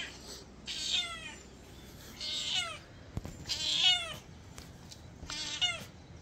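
Calico cat meowing four times, each call falling in pitch, as she asks for food at the door. There is a single sharp click about three seconds in.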